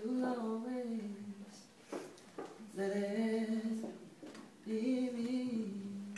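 A man singing unaccompanied in a small room: three slow, long-held phrases with short pauses between them, the closing lines of a ballad.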